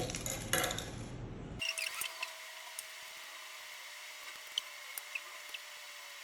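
Small clicks and knocks of plastic parts being handled while a soap dispenser is taken apart: a cluster in the first two seconds, then a few scattered faint ticks.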